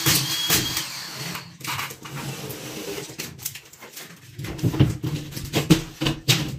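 Drywall screw gun whining briefly as it drives a screw into plasterboard, stopping within the first second, followed by irregular knocks and clatter of work on the boards.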